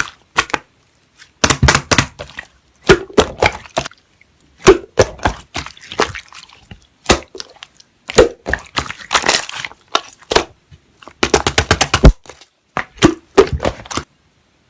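Slime being squished and pressed by hand, giving repeated bursts of crackling pops and clicks with short pauses between, stopping shortly before the end.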